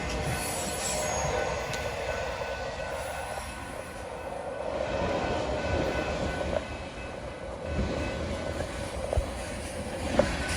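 Freight cars of a manifest train rolling past on the rails, a steady rumble with faint, steady wheel squeal and a few sharp knocks.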